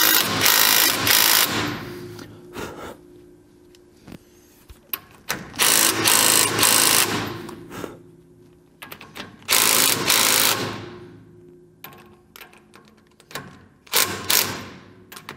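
Cordless impact wrench hammering in four short runs of a second or two each, tightening nuts on a truck's rebuilt front suspension and steering, with small clicks of the tool and parts between runs.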